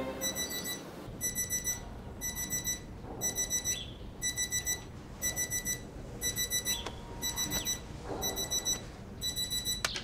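Digital bedside alarm clock beeping: groups of four quick high beeps about once a second, cut off near the end as it is switched off.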